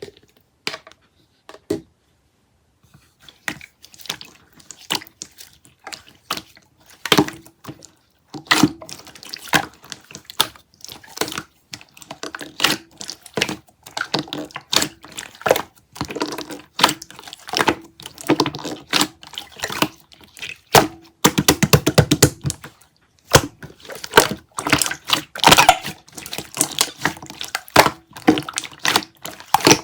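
Sticky, wet clicking and crackling of a chewy, tacky material being squeezed and pulled by hand, starting after a few quiet seconds and running on in dense quick clicks, with a heavier, lower squish about three quarters through.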